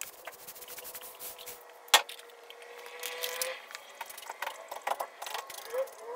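Paint roller and brush working epoxy floor coating onto a concrete floor. A steady high squeak runs through the first half, and a single sharp knock about two seconds in is the loudest sound. Small scrapes and clicks follow as the brush works the edge.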